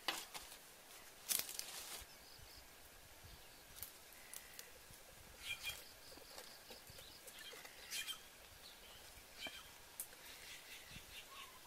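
Quiet scattered clicks and rustles of hands moving small mushrooms on a woven bamboo tray and dropping them into a pot of water, with a few faint high chirps.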